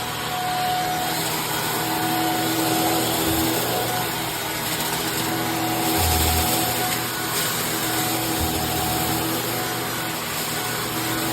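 Shark Stratos AZ3002 upright vacuum running, a steady motor whine over rushing suction noise that swells and eases as the vacuum is worked. A few dull low thumps sound in the middle stretch.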